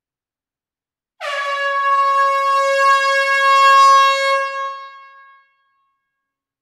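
A single long horn blast, likely an added sound effect. About a second in it starts abruptly, holds one steady note for around three seconds, then fades away.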